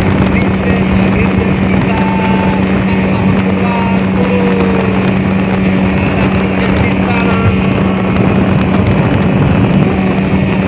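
Speedboat engine running at a steady high speed, a constant drone under the rush of wind and of water spraying off the hull as it planes across the water.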